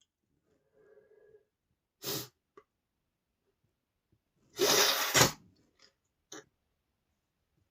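A man sneezing: a faint voiced build-up, a short sharp burst about two seconds in, then one loud, longer sneeze about five seconds in. The sneezing is set off by dust in the nose.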